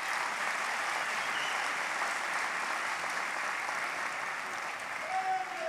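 Audience applauding steadily, easing off near the end.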